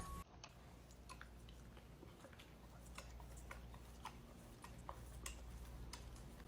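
Near silence, with faint, scattered small clicks.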